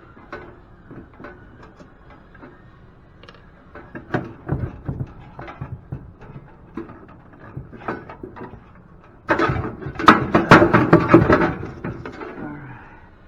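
Metal parts and hand tools knocking and clattering while scrap equipment is taken apart. There are scattered single knocks at first, then a dense, loud burst of rattling about nine seconds in that lasts two to three seconds.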